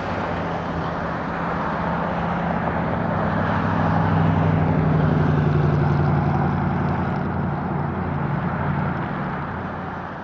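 Airbus A350-900's Rolls-Royce Trent XWB jet engines at taxi power as the airliner taxis past: a steady rumble with a low hum that grows to its loudest about halfway through, then fades.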